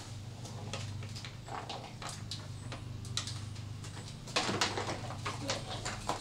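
Irregular clicks and light knocks from hands working on the plastic lower front bumper and its fittings of a car, with a quicker cluster of clicks about four seconds in. A steady low hum runs underneath and stops near the end.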